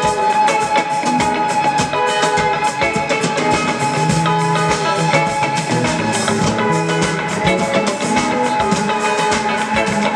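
Music with a drum kit and guitar playing a steady beat.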